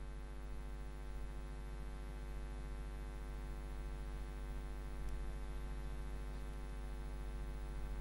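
Steady electrical mains hum: a low buzz with a ladder of evenly spaced overtones, unchanging throughout.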